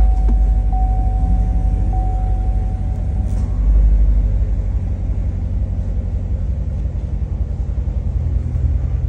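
The 2016 Chevrolet Corvette Stingray's 6.2-litre LT1 V8 idling, a deep, pulsing rumble heard from inside the cabin. A dashboard warning chime repeats its tone about three times and stops about three seconds in.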